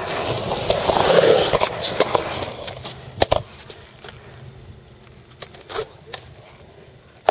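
Skateboard wheels rolling over smooth concrete, fading over the first three seconds. A pair of sharp board clacks follows about three seconds in, with a few fainter knocks after.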